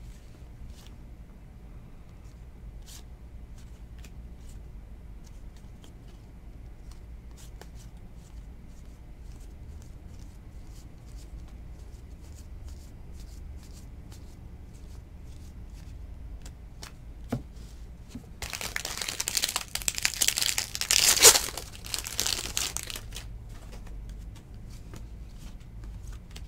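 Trading cards flicking and sliding through the hands in faint clicks. About two-thirds in comes a loud few seconds of a foil card-pack wrapper being torn open and crinkled.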